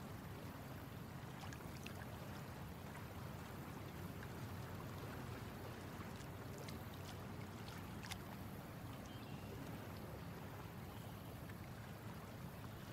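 Lake water lapping gently around a small boat: a faint, steady low wash with a few light ticks and drips scattered through the middle.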